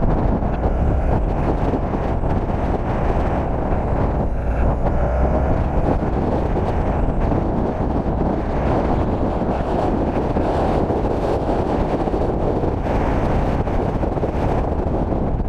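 Steady wind rushing over the microphone, mixed with the rumble of longboard wheels rolling on asphalt during a fast downhill run.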